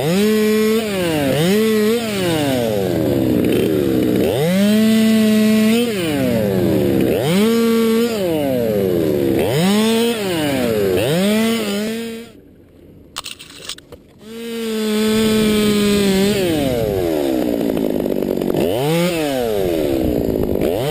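Stihl MS 200 T top-handle two-stroke chainsaw revving up and down again and again while cutting spruce: the pitch climbs to full speed, holds for a moment, then falls back. It drops out briefly about twelve seconds in, then picks up again a couple of seconds later.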